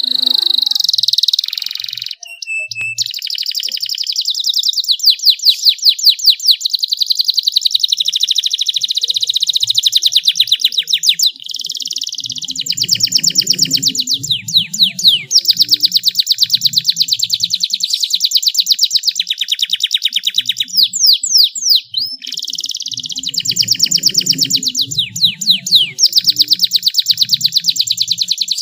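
Male domestic canary singing long, rapid rolling trills of fast repeated high notes, broken by brief pauses.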